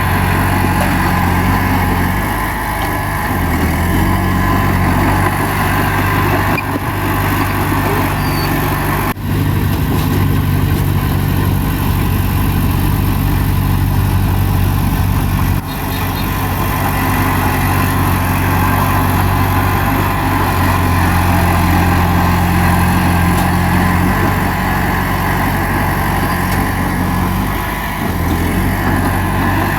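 Bulldozer's diesel engine running steadily, its pitch shifting slightly a few times as the load changes.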